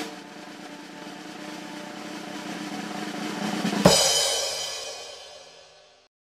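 Title-card sound effect: a drum roll swelling in loudness for nearly four seconds, ending in a cymbal crash that rings and fades out over about two seconds.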